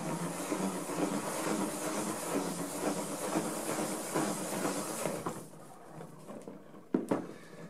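Plastic IKEA salad spinner cranked by the knob on its lid, whirling two film developing reels to fling the rinse water off a washed film: a steady whirring hiss that dies down about five seconds in, then a single sharp click near the end.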